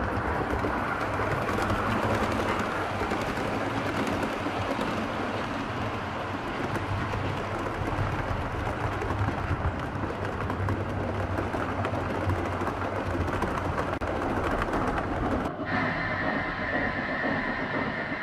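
7mm-scale model train running past on its track: a continuous rumble with a low hum and many small clicks from the wheels on the rails. About fifteen seconds in, it switches abruptly to a quieter train sound carrying a steady high tone.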